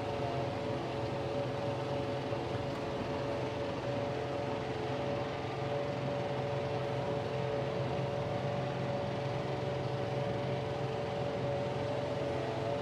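John Deere 4075R compact tractor's diesel engine and the PTO-driven RhinoAg TS10 flex-wing mower running steadily while mowing, with a steady whine over the drone of the machinery.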